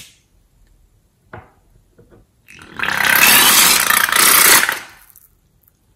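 Liquid and air forced out through the neck of a squeezed rubber balloon in a loud, noisy sputter lasting about two seconds, from about two and a half seconds in. A sharp click at the start and a light knock earlier.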